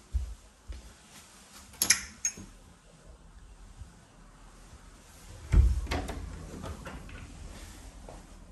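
Wooden interior doors being opened and closed by hand: a latch clicks about two seconds in, then a louder thud comes at about five and a half seconds and dies away.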